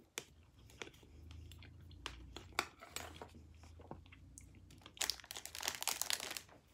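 Close-up chewing of a mouthful of fruit: scattered mouth clicks and wet smacks, then a dense run of crunchy, crackly chewing about five seconds in.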